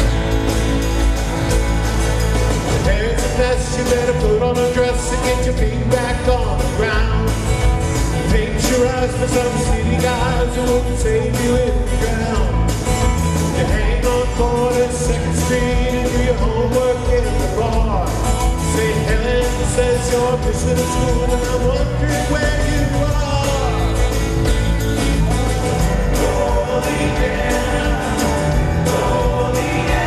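Live band playing a song, with acoustic guitar and grand piano under a sung lead vocal, sustained over a steady accompaniment.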